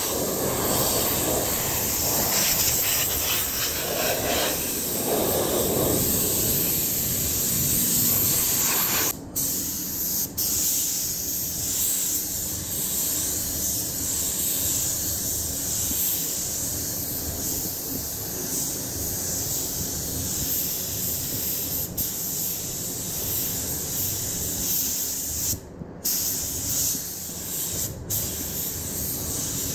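Gravity-feed compressed-air paint spray gun hissing steadily while spraying a motorcycle fuel tank, with a fuller, lower rushing under it for the first nine seconds. The hiss breaks off for a moment several times.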